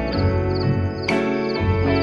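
Calm ambient background music: layered, sustained notes, with a bright struck note about a second in.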